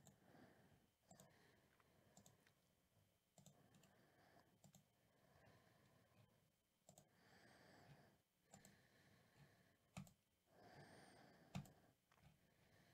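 Near silence with scattered faint computer mouse clicks, and two soft, longer breathy noises in the second half.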